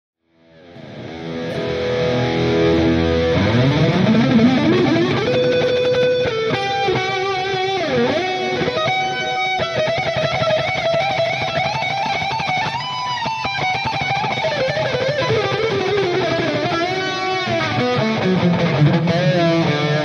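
Electric guitar with a high-gain tone from a modeling unit, playing a melodic lead line of sustained notes with string bends and vibrato. It fades in over the first couple of seconds.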